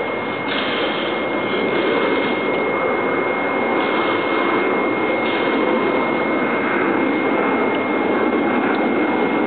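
BioLite wood-burning camp stove with its built-in fan blowing air into the burning wood: a steady whooshing rush with a thin, high, steady whine over it.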